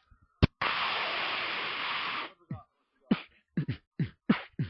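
A man making sound effects with his mouth: a sharp click, then a steady hiss for nearly two seconds, then a quick run of beatbox kick-drum beats, each dropping in pitch.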